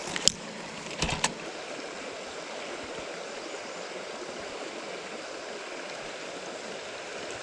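Shallow creek water running steadily over rocks. A few sharp clicks come in the first second and a half.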